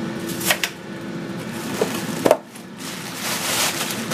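Knocks and a clunk as the metal lid of an electric contact grill is lowered onto foil-covered prawns, the loudest clunk a little past two seconds in, over a steady hum. A plastic bag rustles near the end.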